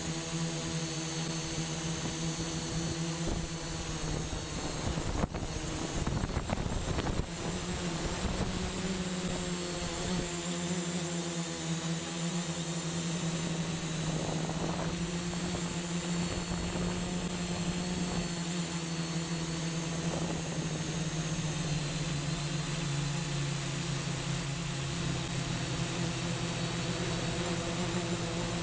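The TX8 octocopter's eight 880kv brushless motors and 10x4.7 propellers hum steadily in flight, heard from the onboard camera, their pitch shifting slightly as the throttle changes. Low rumbling buffets hit the microphone from about four to eight seconds in.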